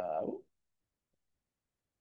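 The last syllable of a spoken word, then dead silence with no room sound at all.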